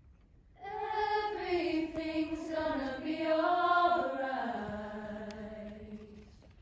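Women's a cappella group singing in close harmony: after a brief pause the voices come in together about half a second in on a sustained phrase, shift pitch as one, then die away near the end.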